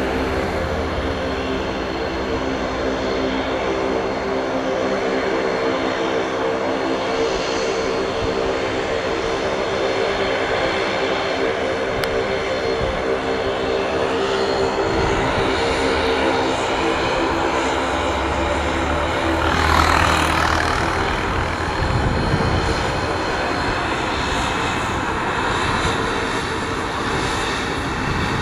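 Bombardier Dash 8 Q400's twin turboprops running at take-off power as it begins its roll, a steady, loud propeller drone. A brief whoosh rises and falls about two-thirds of the way through.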